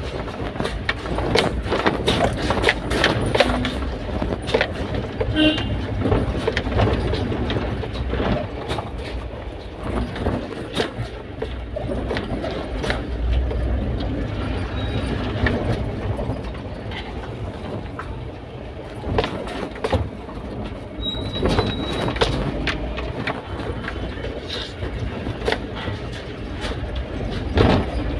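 Mahindra Bolero pickup's cab on the move: steady engine and road rumble with frequent rattles and clunks from the cab and load bed.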